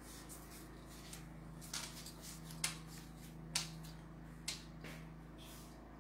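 A run of sharp clicks over a steady low hum. The loudest four come a little under a second apart, with a few fainter ticks between them.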